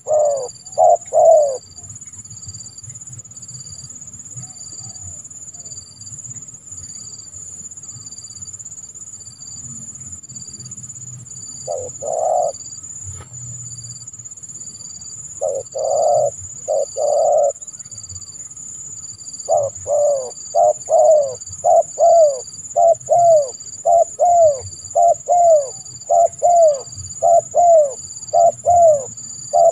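Spotted dove (tekukur) cooing: a few short phrases of rounded coo notes, then, from about two-thirds of the way through, a long run of coos at about two a second. A steady high-pitched tone sounds throughout underneath.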